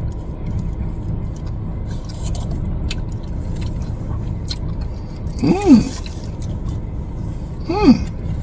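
Steady low rumble, with two short humming 'mmm' sounds from a man's voice about two seconds apart in the second half, each rising then falling in pitch, as he savours a sip of the piña colada.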